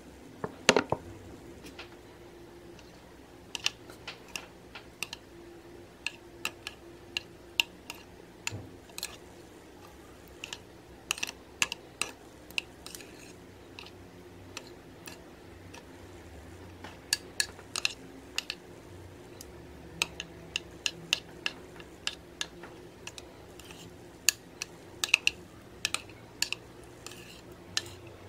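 A metal butter knife stirring and folding thick slime in a glass bowl, giving irregular sharp clicks and taps as the blade knocks the glass and works the sticky mixture.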